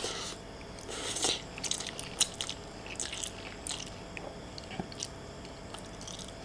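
Close-up slurping of a forkful of instant fried noodles in the first second or so, then chewing with many small wet clicks that thin out over the last couple of seconds.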